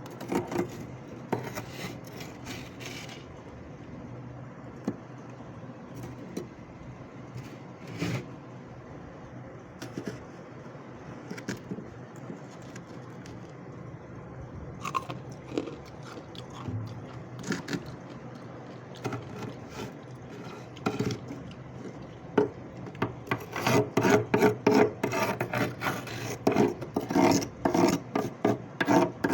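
Freezer frost being scraped in irregular rasping strokes, few and scattered at first, then coming thick and fast near the end.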